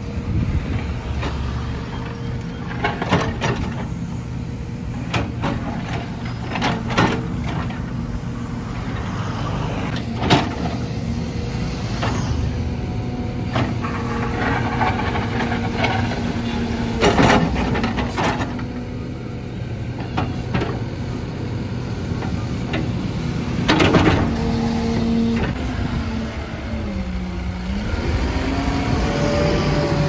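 Tata Hitachi Shinrai backhoe loader's diesel engine running steadily, with scattered knocks and scrapes as its bucket digs into and shifts broken concrete rubble. Near the end the engine note dips and then rises.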